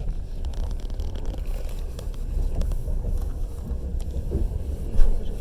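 Passenger railway carriage running along the track: a steady low rumble of wheels on rails with scattered light clicks and rattles, and one sharper knock about five seconds in.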